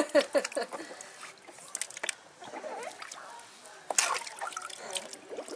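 Water splashing and trickling in a plastic tub with a baby sitting in it, with the sharpest splashes at the start and about four seconds in.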